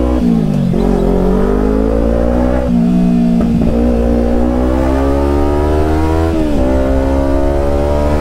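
Kawasaki Ninja 300 parallel-twin motorcycle engine and exhaust under way, heard from the rider's seat. The engine pitch climbs steadily under acceleration and drops sharply twice, a little under three seconds in and again about six seconds in, as the rider shifts up a gear.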